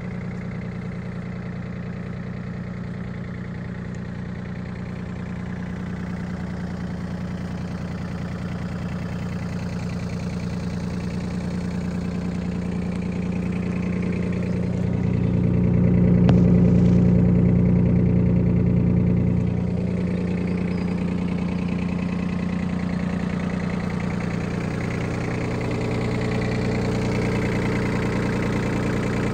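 Yanmar AF17 compact tractor's three-cylinder diesel engine idling steadily at an even pitch, louder for a few seconds about halfway through.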